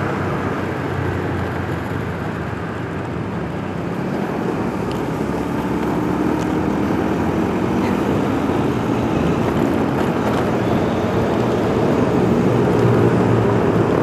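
Motorcycle riding sound: the engine running under a dense rush of road and air noise. The engine note rises slowly and the whole sound grows gradually louder as the bike speeds up.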